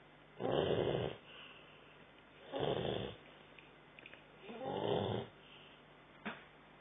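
Sleeping dog snoring, three snores about two seconds apart, with a brief click near the end.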